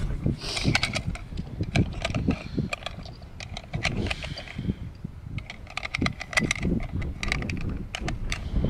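Small metallic clicks of .270 Winchester cartridges being handled and loaded into a bolt-action rifle's detachable box magazine, many light ticks spread throughout, over a low rumble.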